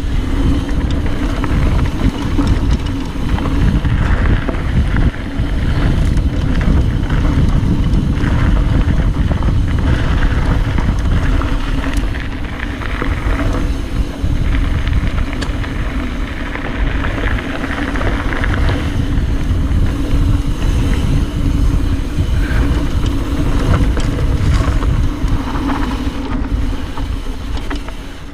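Wind buffeting the camera microphone on a fast mountain-bike descent. Tyres rumble and the bike clatters over the dirt trail, and the noise drops off near the end.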